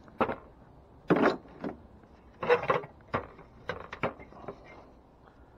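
Scrap finds knocking and clattering as they are handled and set down: about eight irregular knocks and clanks, the loudest about two and a half seconds in.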